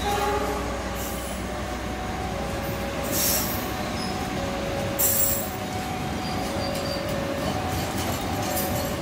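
Long-distance passenger train coaches rolling past, with steady wheel-on-rail noise and on-and-off squealing tones from the wheels. Two brief sharper noises come about three and five seconds in.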